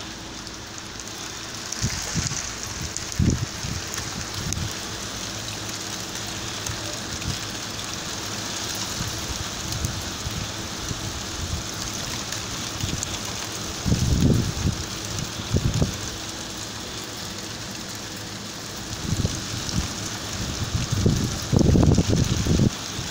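A heavy hail and sleety snow shower falling on a tiled roof, a steady pattering hiss. Low buffeting on the microphone surges a few times in the second half.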